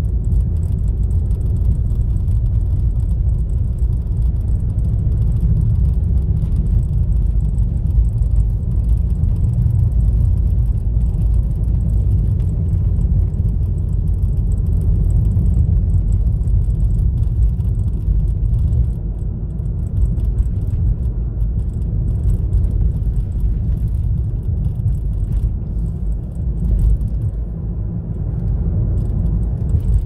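Steady low rumble of a car driving on a paved road, heard from inside the cabin: engine and tyre noise.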